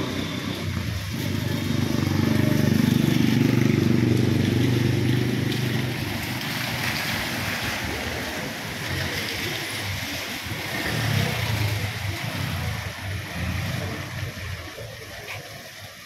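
Cars driving past on a wet paved street: engine sound and tyre hiss on the wet paving. The loudest car passes close during the first few seconds, and another passes about eleven seconds in.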